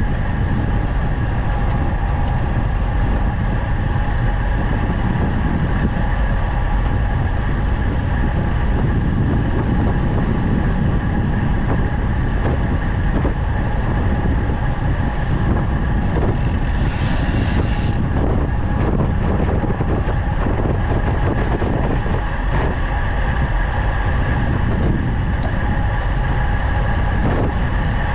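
Wind rushing over the microphone of a bike-mounted camera on a fast road-bike descent, together with tyre and road noise: a steady, loud low rumble with a few faint steady tones above it.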